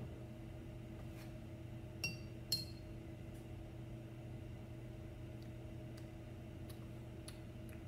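A thin metal stirring rod clinks twice against a glass mason jar, about half a second apart, each clink ringing briefly. A few faint ticks follow, over a steady low hum.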